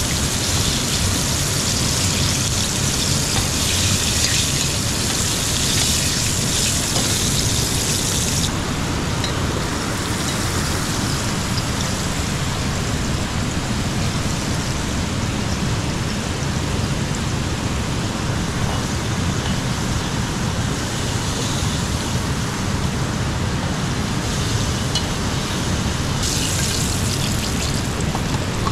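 A stream running in a steady rush of water. A brighter hiss lies over it for about the first eight seconds and again near the end.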